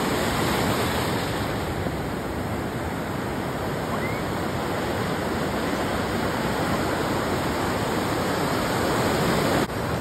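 Ocean surf: waves breaking and white water washing in, a steady rushing noise, with a brief dip near the end.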